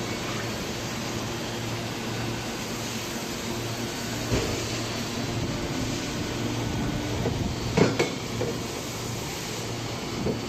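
Steady low hum of factory machinery, with a few sharp metal clinks as welded copper-and-aluminium test pieces are handled on a metal rack; the loudest is a double clink about eight seconds in.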